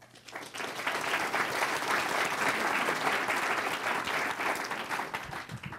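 Audience applauding in a lecture hall: a dense, steady patter of clapping that starts right away and thins out near the end.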